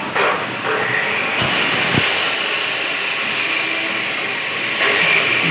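Workshop machinery running: a steady whine over a rushing noise, stepping louder about a second in and again near the end.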